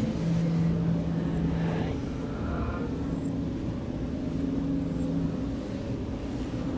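Steady low droning hum with held tones, played backwards.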